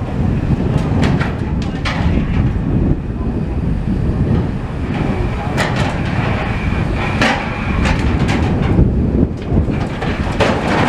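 Demolition machinery running with a steady deep rumble, broken by scattered sharp clanks and knocks of debris being handled.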